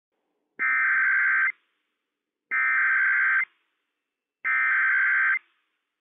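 Emergency Alert System SAME header data bursts from NOAA Weather Radio: three identical buzzy digital bursts of about a second each, evenly spaced about two seconds apart. They encode a Child Abduction Emergency (CAE) alert ahead of the spoken announcement.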